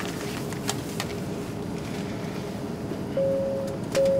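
Steady drone of an airliner cabin in flight. Near the end come two short electronic beeps at the same pitch, each about half a second long, one right after the other.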